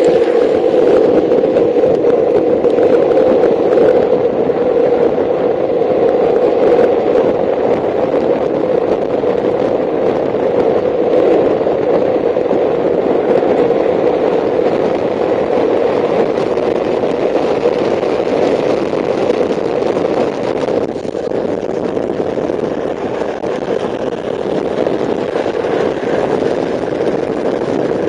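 Speed trikes coasting downhill on asphalt: a steady, loud rolling rumble of their wheels, hard plastic rear wheels among them, on the road surface.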